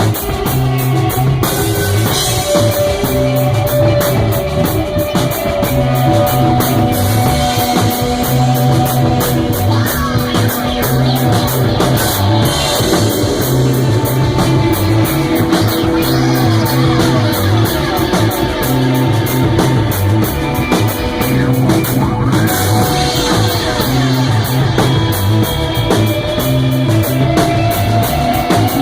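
Rock band playing live and loud: electric guitar lines with sliding notes over bass and drums, with the cymbals struck in a steady even rhythm.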